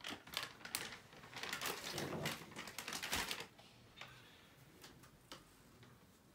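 Crinkling and clicking of a plastic wet-wipe packet as a wipe is pulled out, busy for about three and a half seconds, then only a few faint ticks.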